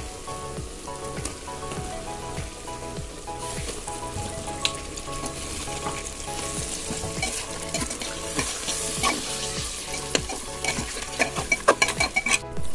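Raw chicken pieces sizzling as they fry in hot oil with onions and spices in an open aluminium pressure cooker, while a metal ladle stirs them. The ladle scrapes and clicks against the pot, most densely near the end.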